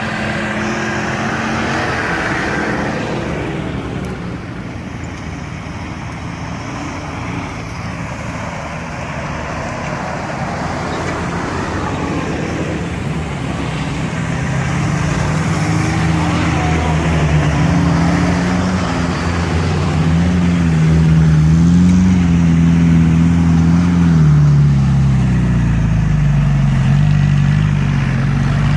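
Off-road 4x4 vehicles driving past in a convoy, engines running with a pitch that rises and falls as they change speed. It grows louder through the second half as one passes close, loudest a little before the end.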